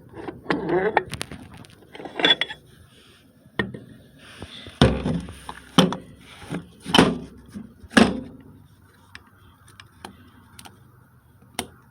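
Sharp knocks and clanks of metal transmission parts and hand tools being handled on the bench. Several come about a second apart in the middle, and one comes near the end.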